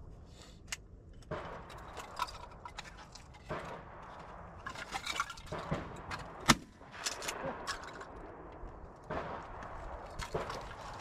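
A single shotgun shot about six and a half seconds in, amid rustling and clicks of handling.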